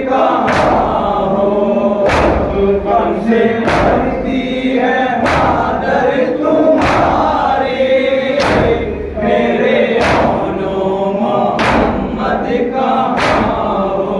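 A crowd of men chanting a noha (mourning lament) in unison while beating their chests in matam. The massed hand-on-chest slaps land together about every one and a half seconds, nine times.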